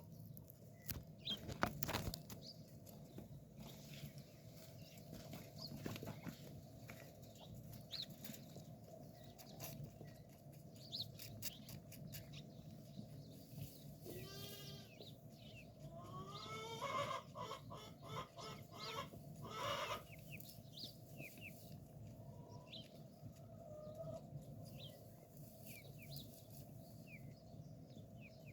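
Farmyard sounds: chickens clucking and small birds chirping, with a single wavering call about halfway through and a louder run of calls a little later.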